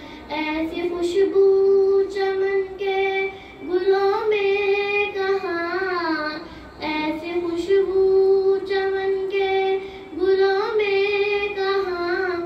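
A girl singing a naat solo, with no instruments: long held notes with ornamented bends, in phrases broken by short breaths.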